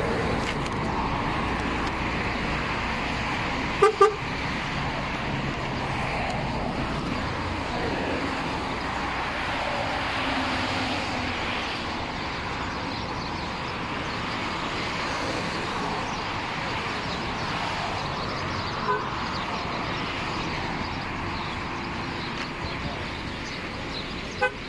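Steady city street traffic noise, with a vehicle horn giving a short double toot about four seconds in, the loudest sound here. Shorter single sounds come twice more, near the end.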